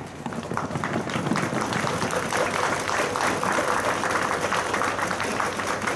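Crowd applauding, a steady dense patter of many hands clapping.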